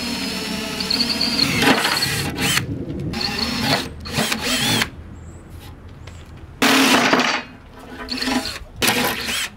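Cordless drill boring holes through the steel bottom of an ammo can, running in several stop-start bursts with short pauses, the loudest burst about seven seconds in.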